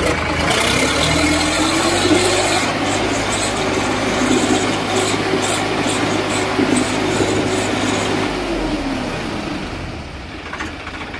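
Swaraj 744 XT tractor's diesel engine revved hard under heavy load while towing a stuck truck. The revs climb in the first second, hold steady and loud, then drop back about eight and a half seconds in.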